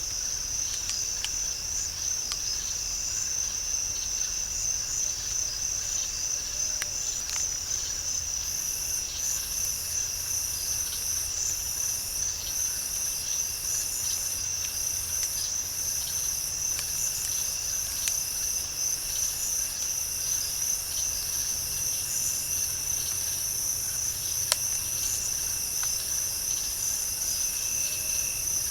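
Night insect chorus: a steady high trill of crickets, joined about a third of the way in by a second insect with a regular pulsing call. Near the end there is a single sharp click.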